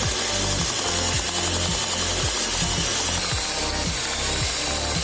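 Angle grinder running steadily as the drive motor of a homemade belt sander, its abrasive belt sanding the edge of a plywood board pressed against it.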